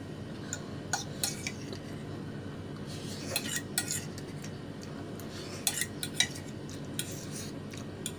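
Spoon and fork scraping and clinking against a plate as the last noodles and rice are gathered up, in scattered short clicks and scrapes.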